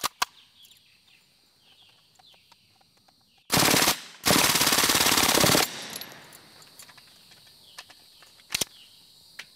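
Suppressed RPB MAC-10 (M10) submachine gun firing full auto in two bursts: a short one about three and a half seconds in, then after a brief pause a longer burst of about a second and a half. A single sharp click follows near the end.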